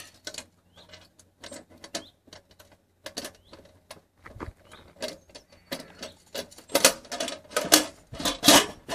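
Clicks and metallic rattles of the latches on a wood-fired oven's metal door being worked open by hand, scattered throughout and loudest in the last two seconds.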